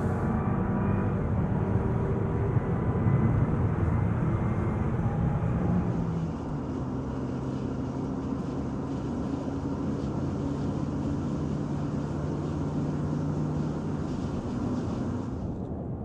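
Car being driven: the engine runs under a steady road rumble. About six seconds in the engine note drops and the sound gets quieter, then it holds at a steady pitch.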